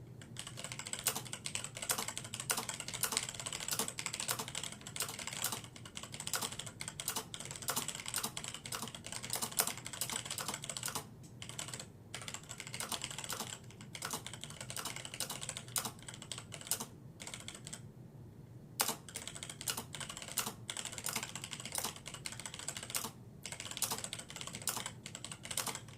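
Typing on a Unitek K151S keyboard with old Cherry MX Black linear switches: a steady stream of irregular keystroke clacks, with a few short pauses.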